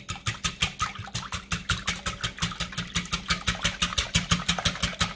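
Wire balloon whisk beating eggs with cold water and salt in a glass bowl: fast, even clicking of the wires against the glass, about eight strokes a second.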